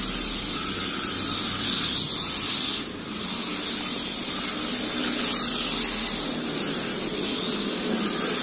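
Mini RC drift cars (Wltoys K989/K969) running a tandem drift: a steady high hiss from their small electric motors and hard tyres sliding on the track, dipping briefly about three seconds in.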